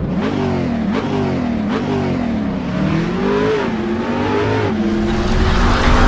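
A car engine revving, its pitch rising and falling several times, then holding steadier, with louder noise building near the end.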